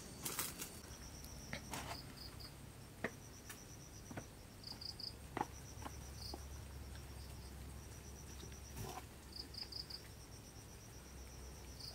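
Insects chirping faintly in short, high, pulsed trills that repeat every second or so, with scattered faint taps and rustles.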